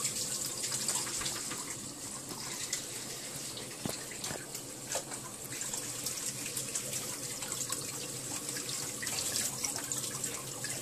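Kitchen tap running steadily into a stainless-steel sink as soil is rinsed by hand from a plant's roots, the water splashing over the roots and hands, with a light knock or two against the sink.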